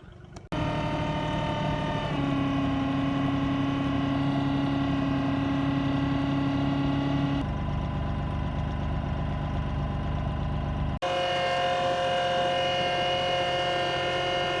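An engine running steadily at a constant speed, in several short stretches that change abruptly where the clips are cut together.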